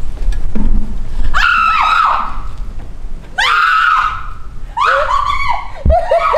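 Young women screaming: four high-pitched wordless screams spread over several seconds.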